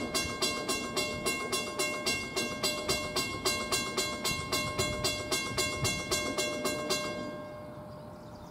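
Railroad grade-crossing bell ringing at about three to four strokes a second, then stopping about seven seconds in.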